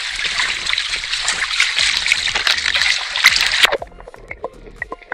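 Close splashing, sloshing water: a loud crackling hiss that cuts off abruptly a little over three and a half seconds in, followed by scattered faint ticks.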